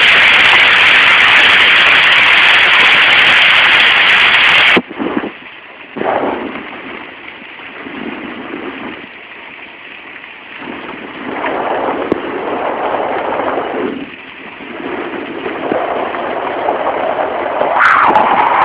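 Hail and heavy rain pelting down: a loud, steady hiss. About five seconds in it suddenly drops to a quieter, muffled rush that swells and fades in waves, then comes back loud near the end.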